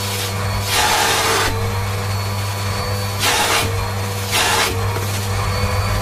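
Siemens Synchropower vacuum cleaner running steadily, its wand sucking at a white fur tuft, with a steady motor hum and a high whine. The rushing of air surges louder several times, briefly each time, as the fur is pulled against the nozzle.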